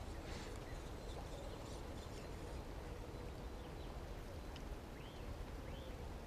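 Wind rumbling on the microphone over faint outdoor ambience, with a few short chirping bird calls about twice a second near the end.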